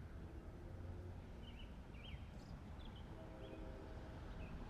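Quiet outdoor ambience with faint, scattered short bird chirps, about half a dozen, and a faint low steady hum in the second half.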